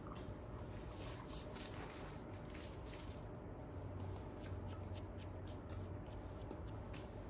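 Faint quick clicks and rustles of a small plastic drinking cup and a yogurt-drink bottle being handled, coming more often in the second half.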